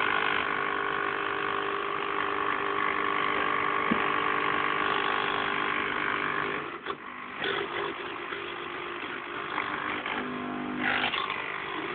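Sunbeam Cafe Crema espresso machine's pump buzzing steadily, then cutting out with a click about seven seconds in as the control knob is turned. A quieter hum follows, with a short buzz again near the end.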